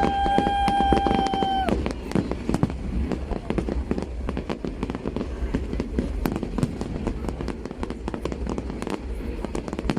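Fireworks going off, a dense run of sharp pops and bangs throughout. For about the first two seconds a steady high tone sounds over them, then stops.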